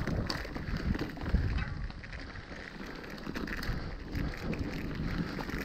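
Kona Process 153 full-suspension mountain bike descending a rocky trail: tyres crunching over stones amid a steady clatter of chain and frame rattles, with wind buffeting the microphone.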